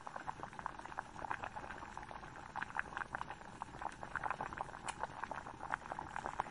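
Electric kettle heating water: faint, irregular crackling and ticking from inside the kettle.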